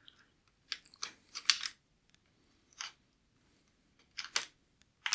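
Cables and plastic parts scraping and crackling as a wiring bundle is pulled out through the plastic housing of a DeLonghi ECAM bean-to-cup coffee machine. The sound comes in four or five short, scratchy bursts.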